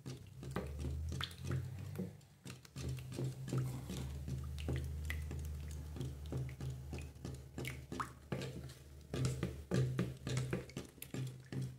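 Wooden spoon stirring a thick, wet mixture of oil, alcohol and lye solution in a plastic bucket, with irregular squishing and the spoon knocking and scraping against the bucket's sides over a steady low hum.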